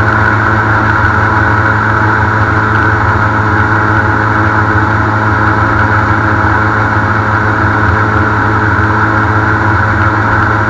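Airboat's engine and air propeller running steadily while the boat is underway, an even, unbroken drone.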